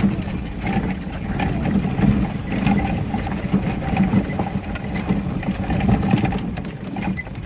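A vehicle engine running steadily, with rattles and clicks over it.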